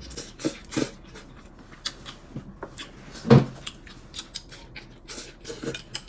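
Eating sounds: chopsticks clicking and scraping against porcelain bowls, with mouth noises of noodles being eaten. A sharper knock comes about three seconds in.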